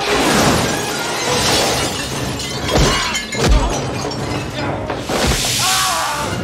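Fight sound effects in a kitchen: dishes and metal gear crashing and shattering, with heavy impacts of blows and bodies, several hard hits about three seconds in. Near the end comes a loud rushing hiss as a white cloud bursts out.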